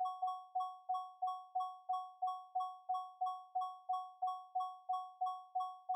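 Electric doorbell's striker hitting its bell cup over and over in rapid succession, about three strikes a second, each strike a clear bell tone that rings briefly and fades before the next.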